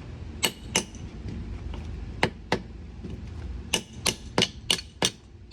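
Hammer striking to seat the new rubber sway bar bushings and spacer on a GMT400 Chevy Suburban's rear sway bar. There are about nine sharp hits: two pairs, then a faster run of five near the end.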